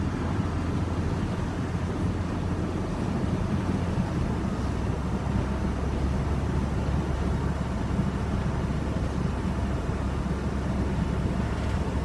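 Steady engine and road rumble inside a moving car's cabin; the low drone deepens slightly about four seconds in.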